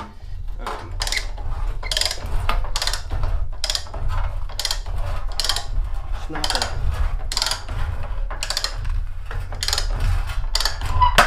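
Hand-lever rotary shear cutting sheet metal, a sharp crunching click with each stroke of the lever, about two strokes a second, over a steady low rumble.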